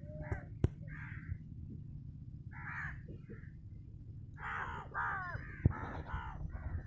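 A crow cawing: a few harsh caws, then a quicker run of caws in the second half. A couple of sharp clicks and a steady low rumble sit underneath.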